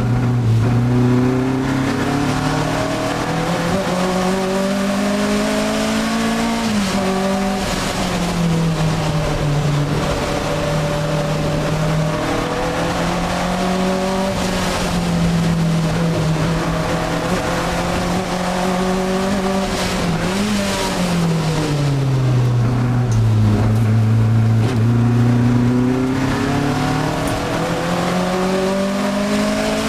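Alfa Romeo 1750 GTV's twin-cam four-cylinder engine heard from inside the cabin at racing speed, revving up in pitch under acceleration and dropping at gear changes and under braking. About twenty seconds in there is a quick blip of revs, then a long fall in pitch before it climbs again.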